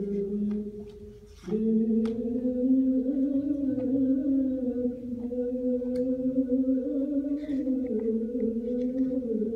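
A person's voice holding a long, low, droning note like a chant or hum, with slight wavers in pitch. It breaks off briefly about a second and a half in, as for a breath, then carries on. A few faint clicks sound along the way.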